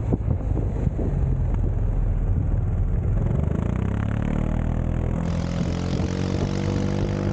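Zontes 350E scooter's single-cylinder engine running under the rush of riding wind as the scooter slows. About halfway through, the engine note comes through clearly and rises in pitch as the throttle opens again.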